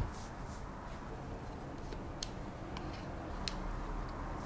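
A few light, sharp clicks from a laptop and a small precision screwdriver being handled on a desk. The two clearest clicks come about a second and a quarter apart, over a low steady hum.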